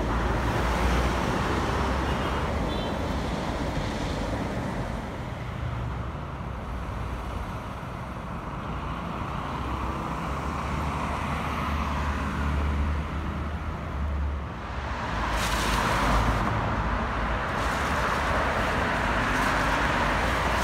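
City street traffic: a steady hum of passing cars, with a louder vehicle going by about fifteen seconds in.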